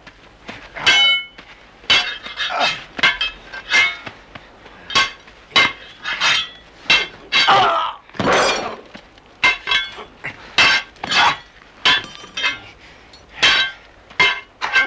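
Sword fight: steel blades clashing again and again, about twenty ringing clangs at an uneven pace of one or two a second, with a longer, rougher clash about eight seconds in.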